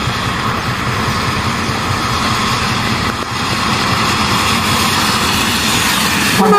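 An approaching intercity coach bus running on a rain-soaked road, its engine rumble and the hiss of tyres and rain on wet asphalt growing louder from about halfway through as it nears.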